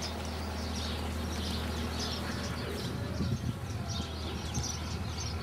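Birds chirping over outdoor ambience, with a low steady hum that breaks up about halfway through.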